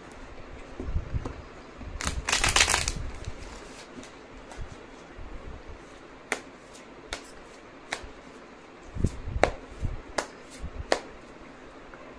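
A deck of tarot cards being shuffled by hand: a quick riffle of fast flicking about two seconds in, then a series of separate sharp card clicks as the deck is worked.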